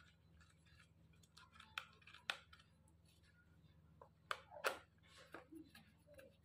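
Faint clicks and light scraping of a screwdriver working the small screws in the plastic frame of a cigarette-rolling mould, with a few sharp ticks about two and four and a half seconds in, over a low steady hum.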